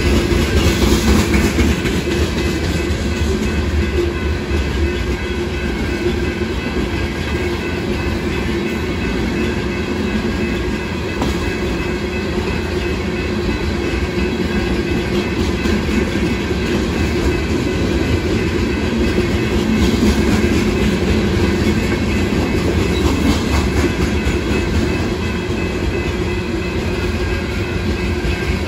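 Loaded freight cars of a rock train rolling steadily past, their steel wheels running on the rails in a continuous, even rumble.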